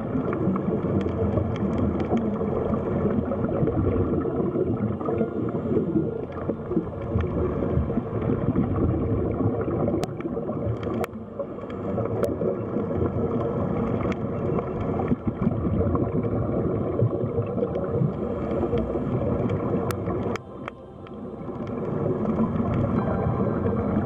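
Underwater ambience: a steady rushing, gurgling water noise with a few sharp clicks. It drops away briefly about twenty seconds in, then swells back.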